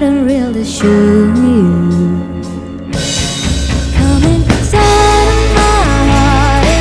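Live indie rock band playing with a singer: a sung line with vibrato over electric guitar, bass and drums. The band thins out briefly near the middle, then comes back in full.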